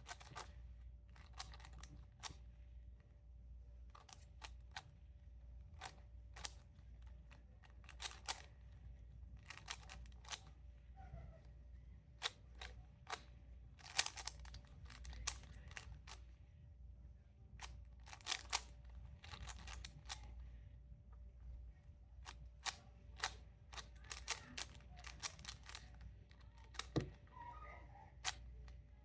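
Plastic speed Rubik's cube being turned rapidly by hand: quick runs of sharp clicks and clacks from the layers snapping round, with short pauses between runs as moves are worked out. A faint steady hum runs underneath.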